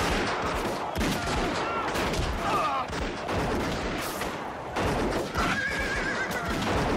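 Horses whinnying repeatedly, with a long whinny about two thirds of the way through, over galloping hooves and gunshots from rifles and revolvers.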